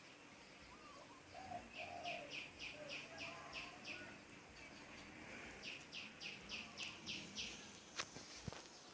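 A bird calling in two runs of rapid, evenly repeated high notes, about eight notes at roughly four a second each, with softer, lower gliding calls in the first half. A couple of sharp clicks come near the end.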